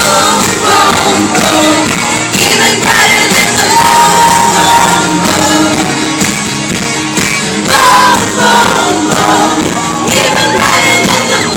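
Live pop concert music played over a large sound system, with the crowd singing along and shouting close to the microphone.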